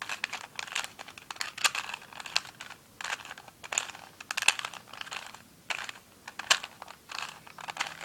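Plastic clicking and scraping of a 2x2 V-Cube's layers being turned in quick groups of moves with short pauses between them, as the last corner is twisted into place.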